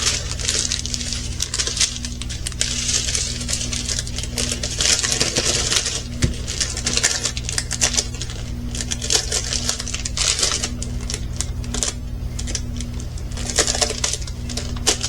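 Small plastic bags of resin diamond-painting drills being handled, the loose drills rattling and clicking with the plastic crinkling.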